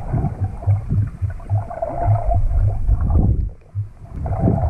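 Muffled underwater sound from a submerged action camera: water sloshing and churning, with a run of irregular low thuds and little high sound.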